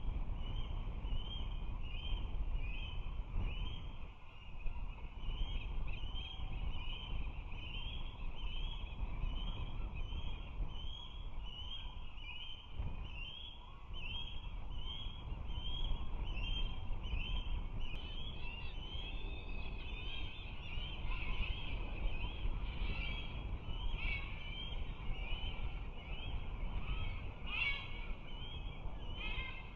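Osprey giving a long series of short, rising, whistled chirps, about two a second, that grow louder and more insistent in the last ten seconds. A steady low rumble lies underneath.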